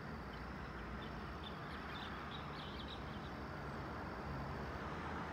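Small birds chirping in quick, short high notes over a steady low background rumble; a low hum comes up slightly near the end.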